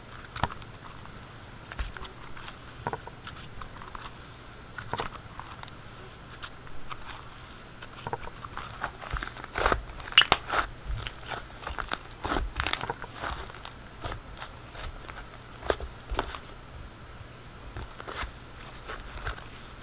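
Slime being kneaded by hand with soft Daiso clay worked into it: irregular sticky crackles and small pops, busiest about halfway through.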